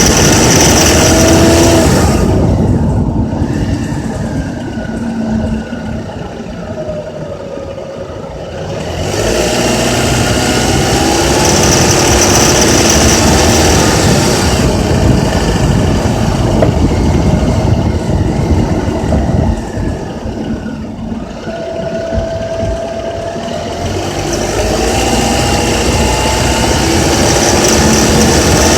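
Honda Accord's K24Z3 2.4-litre four-cylinder engine revved and held in the mid-range, eased off twice and brought back up, to show a rattle that comes in around 2200–3000 rpm.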